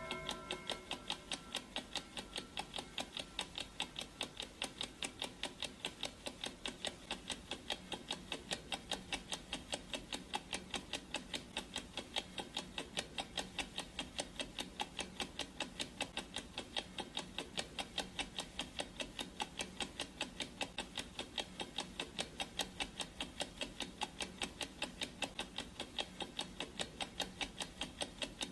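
Clock ticking sound effect: an even, rapid ticking that keeps a steady beat. The ringing tail of a gong stroke dies away in the first second.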